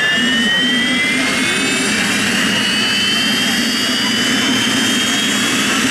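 PZL-Świdnik Mi-2 helicopter's twin turboshaft engines spooling up during start, a loud turbine whine rising slowly in pitch as the main rotor begins to turn.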